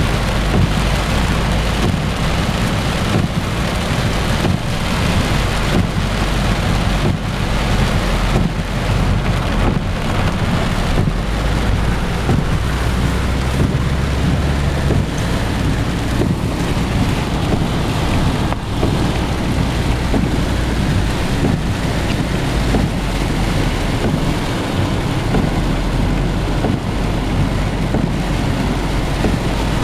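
Heavy rain beating on a car in a gusty storm, with wind rumbling on the microphone.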